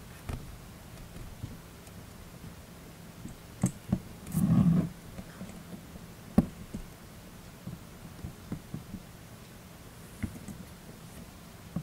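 Small clicks and handling noises from reassembling the line roller and bail of a Bullzen Berserk Immortal 3500 spinning reel, with a louder rustling burst about four and a half seconds in and a sharp click a couple of seconds later.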